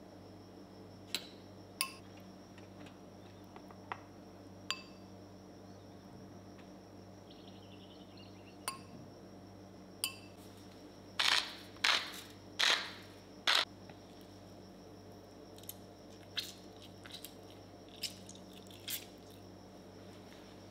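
Metal fork clinking and scraping against a small glass bowl as cooked abalone slices are pushed out onto the plate: scattered light clinks, with a run of four louder scrapes in the middle, over a steady low hum.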